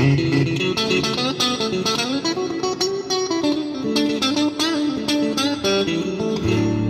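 Electric guitar played through a Traynor amp with a Boss RV-70 digital reverb switched in: a run of picked single notes, several of them bent in pitch.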